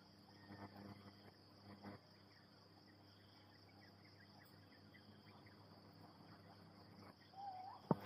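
Faint, steady, high-pitched chorus of crickets and other insects in tropical rainforest, with a few faint chirps in the first couple of seconds.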